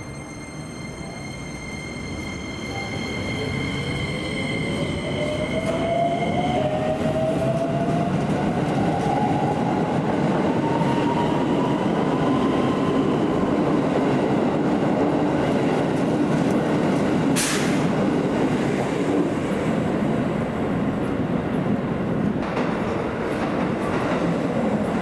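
Keikyu 1000 series electric train pulling out of a station. Its traction motor whine rises steadily in pitch as it accelerates, and the wheel and rail running noise grows louder and then holds. A steady high whine stops about six seconds in, and a single sharp click comes near the middle.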